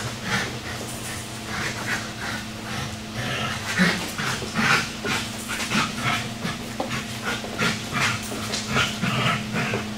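Dog panting hard during tug play, in quick regular breaths about two to three a second, over a steady low hum.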